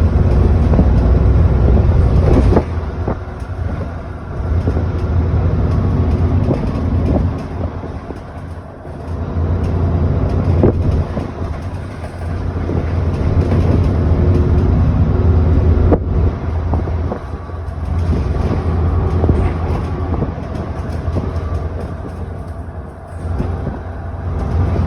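Inside a 2009 ADL Enviro400 double-decker bus on the move: the diesel engine drones, dropping off sharply about two seconds in and then rising and falling several times as the bus pulls and eases off. Short knocks and rattles from the body come through.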